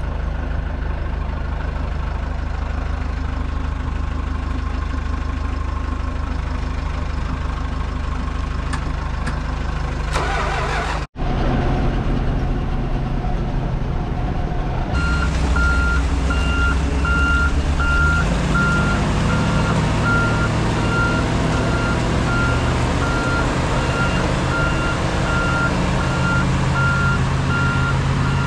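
Tucker Sno-Cat engine running at idle. After a brief break, heavy machinery engine noise continues louder, rising a little in pitch, while a backup alarm beeps in a steady, evenly spaced series.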